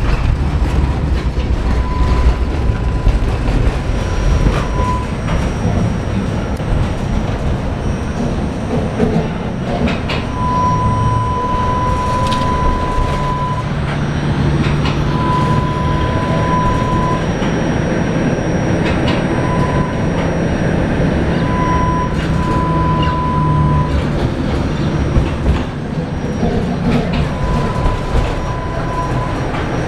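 Tatra T3 tram running, heard from inside the passenger saloon: a steady low rumble of wheels on the rails. A thin high whine comes and goes several times, and a low hum holds through the middle stretch.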